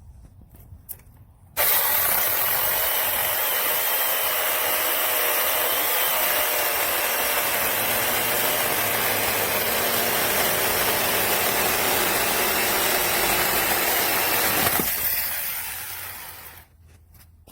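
Battery-powered 6-inch mini chainsaw switching on abruptly, running steadily while cutting wood for about thirteen seconds, then cutting off and winding down.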